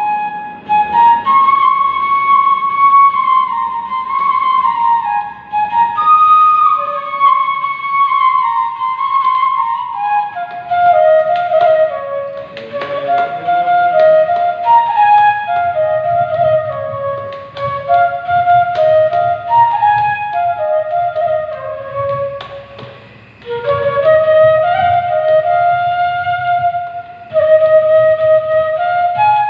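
Bamboo flute (bashi) playing a slow melody of stepped, held notes. It starts higher and moves lower about a third of the way in, over a steady low hum, with a short dip in the playing about three quarters of the way through.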